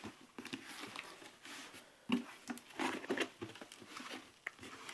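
Irregular light tapping, scratching and rustling as a shipping package of live dubia roaches is handled.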